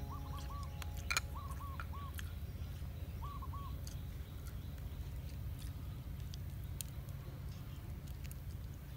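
A bird calling outdoors in short runs of three or four quick hoots, which stop about four seconds in, over a steady low hum, with scattered faint clicks.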